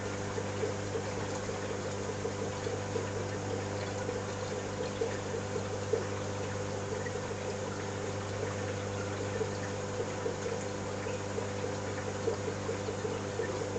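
Marine aquarium equipment running: a steady low pump hum with the sound of circulating water over it.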